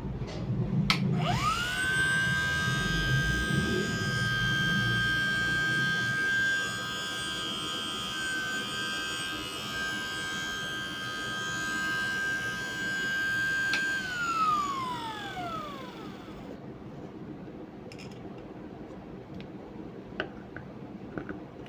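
12-volt DC air cooler motor switched on with a click about a second in, whining quickly up to speed and running steadily, then cut off and winding down with a falling whine about fourteen seconds in.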